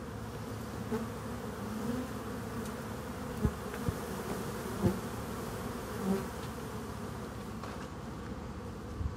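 A swarm of honeybees buzzing over and around a hive box they are moving into: a steady, even hum. A few short, dull knocks come near the middle.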